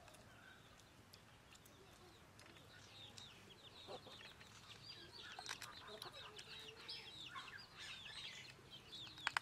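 Faint birdsong: many quick chirps, denser in the second half, with a sharp click just before the end.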